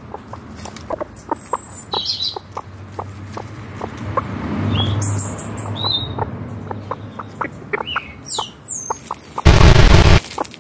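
Chickens scratching and dust bathing in dry dirt and leaf litter: a run of small scratches and ticks, with a few high bird chirps. Near the end comes a short, loud rushing burst as the hen flings dirt up with her wings.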